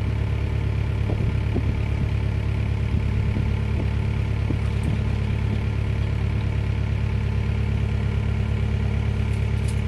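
Forklift engine running steadily at idle while the pump hangs from it.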